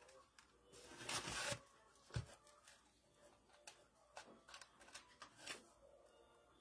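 Faint rustling and handling of dried greenery and a wooden craft board: a short rustle about a second in, a sharp little knock about two seconds in, then soft scattered ticks as the board is lifted and tilted.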